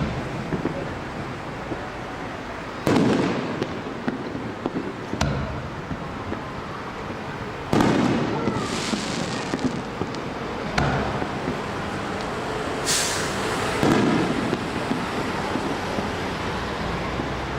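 Aerial fireworks shells bursting: about six sudden booms a couple of seconds apart, some followed by a second or so of crackle.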